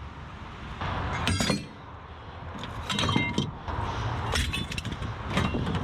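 Aluminum scrap strips clinking and clanking against each other as they are handled, several separate knocks with a short bright metallic ring after each.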